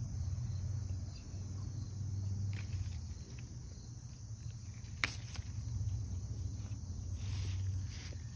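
Outdoor garden ambience: crickets chirping over a steady low rumble, with pepper-plant leaves rustling as a hand handles jalapeño peppers. One sharp click about five seconds in.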